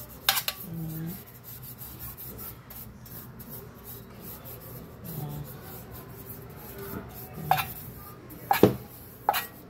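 Pastry brush scrubbing oil over the inside of a stainless steel baking pan, a steady rubbing with a few sharp clicks just after the start and several more near the end.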